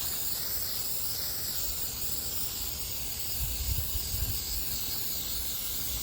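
Shellac being sprayed on, a steady continuous hiss, applied as a sealing coat over residual lead paint. A few faint low thumps come about halfway through.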